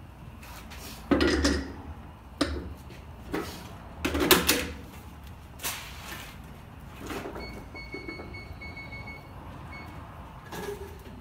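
Clunks and knocks of a Fuchs alloy wheel with a Michelin XWX tyre being handled and seated onto a wheel balancer's shaft, the loudest about four seconds in. This is followed by a run of short electronic beeps in the second half.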